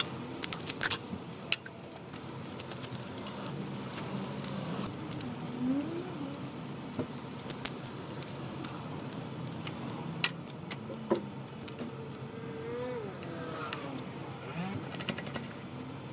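Small metal clicks and taps from handling a screwdriver, a screw and a homemade drill-press drum sander while its sandpaper sleeve is swapped. There are a few sharp clicks about a second in and again around the ten-second mark, over a steady low background hum.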